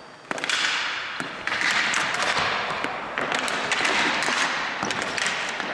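Ball hockey play on a hard gym floor: many sharp clacks of plastic-bladed sticks striking each other and the ball, and the ball hitting the floor, over a steady hiss of noise in the hall.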